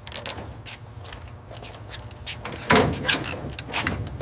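Workshop clatter of tools and parts being handled: a run of irregular knocks, with two louder ones close together a little before the end, over a steady low hum.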